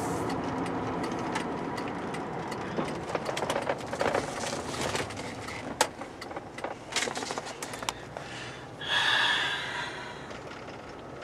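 Steady road and engine noise inside a moving vehicle's cab, slowly getting quieter, with scattered clicks and rattles through the middle and a brief louder rushing noise near the end.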